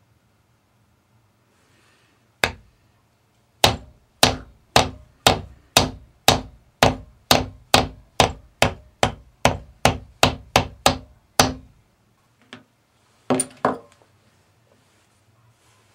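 Mallet striking a metal leather-stamping tool to stamp a design into a leather earring blank: a single blow, then a steady run of about twenty blows at about two a second, coming a little quicker toward the end, then a light tap and a final quick double blow.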